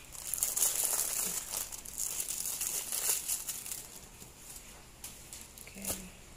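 Clear plastic wrapping on a rolled diamond painting canvas crinkling as it is handled, busiest in the first three seconds and then dying down. A short click comes near the end.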